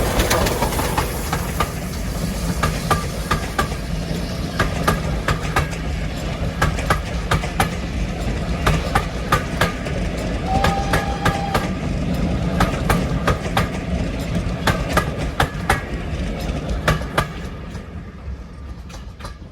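A steam-hauled train rolling past, its wheels clicking over the rail joints in quick irregular runs over a steady low rumble. A brief high tone sounds about ten seconds in, and the train fades away near the end.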